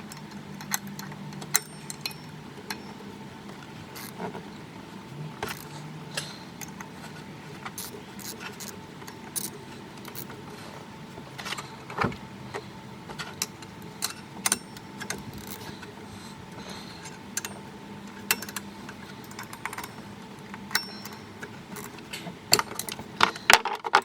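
Irregular metallic clicks and clinks of hand tools on bolts and engine parts while a water pump is fitted and tightened down. A faint steady hum runs underneath.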